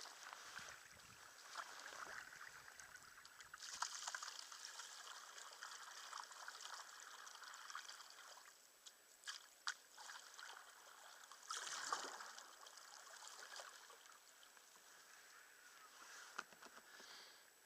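Faint water sounds of a kayak being paddled: water trickling and splashing off the paddle blades and lapping at the hull, with a couple of louder swells of splashing.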